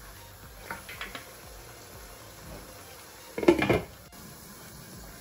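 Wooden spatula scraping and tapping against a non-stick wok as chicken curry is stirred, a few light clicks. About three and a half seconds in comes a loud, brief clatter as a glass lid is set down on the pan.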